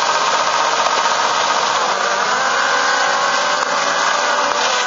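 Several autocross special cross buggies racing, their engines revving hard together as the pack accelerates away down the dirt track, many engine notes overlapping and rising and falling.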